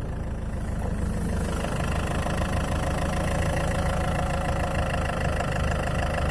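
Land Rover Freelander 2 engine idling steadily with a knock, the engine knock the owner is recording as a fault. It gets a little louder about a second in.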